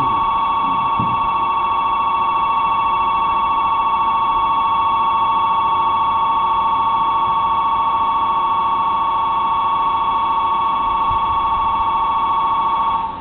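Electric station departure bell ringing continuously at one steady high pitch, signalling that the train is about to leave, then cutting off suddenly near the end.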